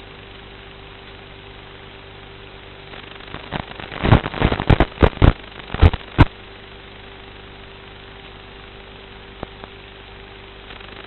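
Steady hum of an FPV racing quadcopter's motors through its onboard audio. About four seconds in it is broken by a cluster of about eight loud, sharp cracks spread over two seconds, then two faint clicks near the end.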